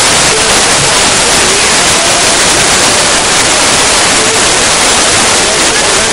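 Loud, steady rush of a wadi in flood, floodwater pouring past without a break.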